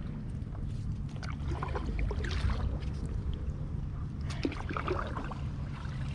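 Paddle working in shallow canal water next to a paddleboard: two spells of small splashes and drips, the first about a second in and the second past four seconds, over a steady low rumble.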